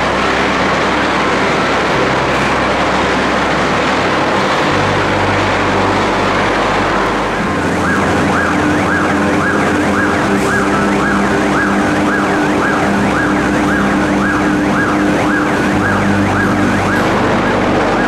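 Loud steady machinery noise in an electric arc furnace shop. About halfway through, a warning siren starts, a rising tone repeating about twice a second, as the furnace roof swings open.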